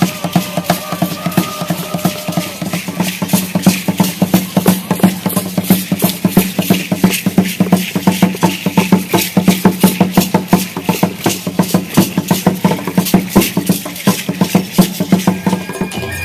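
Aztec dance percussion: drums struck in a fast, even beat, with the clatter of rattles over it.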